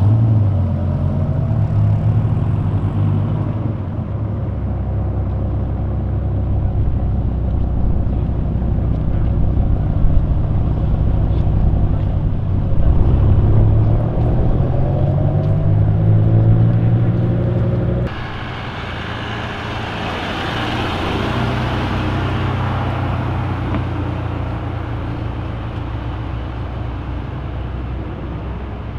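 Car engines pulling away and driving past, their notes rising as they accelerate in gear several times. About two-thirds of the way through the sound changes abruptly to another car passing, its engine and tyre noise swelling and then fading.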